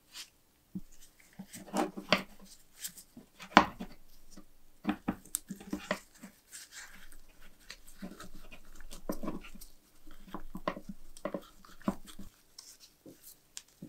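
Quick-release trigger bar clamp being squeezed and adjusted by hand: an irregular run of sharp plastic-and-metal clicks and handling knocks, the loudest about three and a half seconds in. A few short whine-like sounds come in among them.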